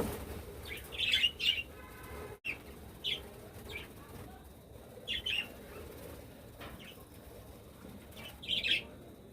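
Pet budgerigars giving short, scattered chirps, with a louder cluster of calls near the end, over a steady low hum.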